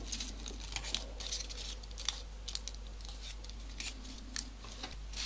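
Small folded paper origami pieces being handled and folded by hand, giving scattered light paper rustles and short ticks.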